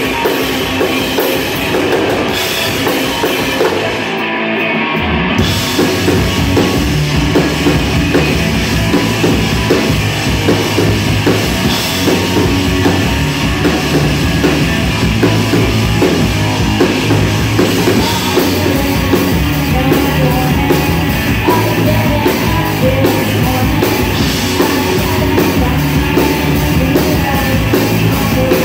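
Live rock band playing loud, heavy electric guitars and a drum kit. The band breaks off briefly about four seconds in, then comes back in with a heavy, steady riff over the drums.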